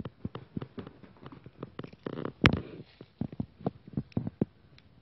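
Kitten pouncing and scrambling after a laser dot: irregular soft thuds and scuffs of paws on carpet, with one sharper knock about two and a half seconds in.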